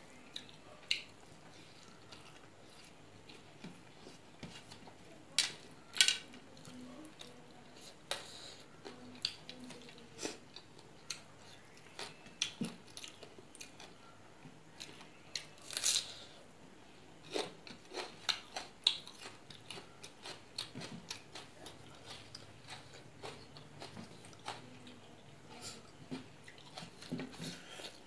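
Close-up eating by hand: chewing and wet mouth smacks, with scattered sharp clicks throughout. The loudest clicks come about 6 and 16 seconds in, and a quick run of them follows just after.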